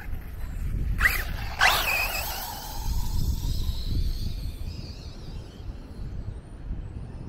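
A 6S electric RC car's motor whining as it passes close by, the pitch falling as it speeds away and fades into the distance, with wind rumbling on the microphone.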